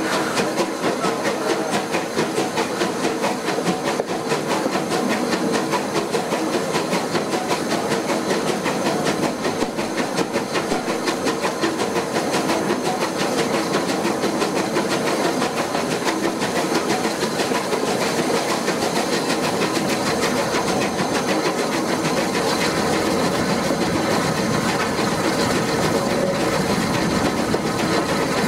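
Bulleid West Country class Light Pacific steam locomotive, a three-cylinder engine, working a train with a fast, steady beat of exhaust, along with hiss and the clatter of carriage wheels on the rails. It is heard close up from an open window of the leading carriage.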